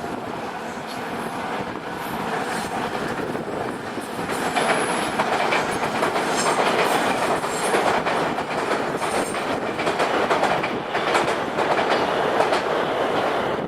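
Nankai Electric Railway train passing, its wheels clacking over the rail joints. The noise grows louder about four seconds in, with a brief high wheel squeal now and then.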